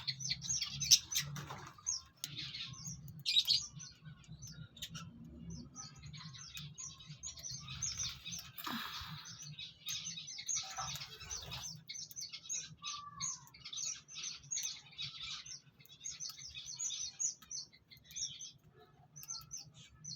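A group of small cage finches chirping rapidly and continuously in short, high notes. A low steady hum lies underneath for the first half.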